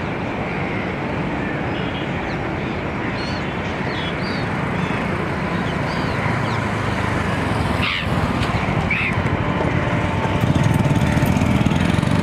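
Steady engine drone that grows louder over the last couple of seconds, with a few short high calls of seagulls over it, the clearest about eight and nine seconds in.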